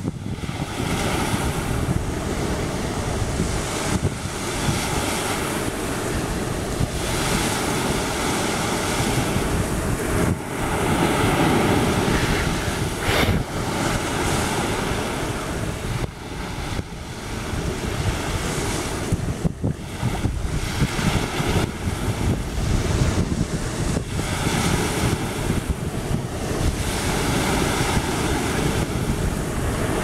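Small waves breaking and washing up onto a sandy beach in a continuous surging wash, with wind buffeting the microphone.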